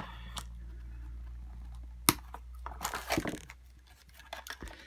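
Scissors snipping the plastic tag fasteners that hold a doll to its packaging: a few sharp clicks and snips, the loudest about two seconds in, with light handling rattles between.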